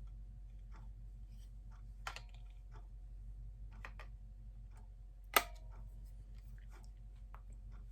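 Scattered light clicks and taps from handling a plastic penlight glowstick, with one sharp, louder click about five and a half seconds in, over a steady low hum.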